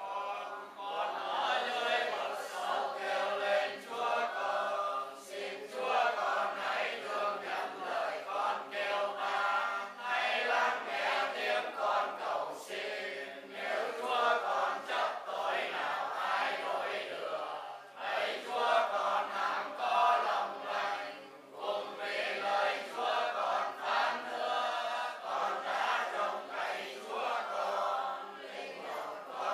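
A group of voices chanting prayers together in unison, in long phrases with short pauses between them: a Vietnamese Catholic congregation reciting prayers for the dead.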